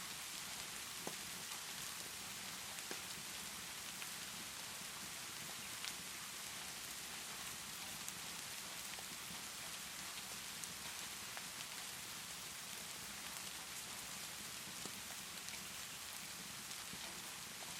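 Steady rainfall, with a few scattered sharp pops of a crackling wood fire.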